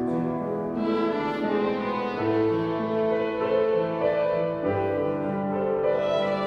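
Violin ensemble playing with piano accompaniment, held bowed notes moving from one to the next over piano chords.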